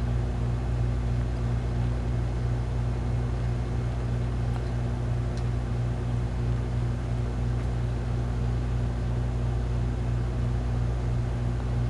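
Steady low hum with a faint even hiss, unchanging throughout: a running appliance or electrical hum in the room.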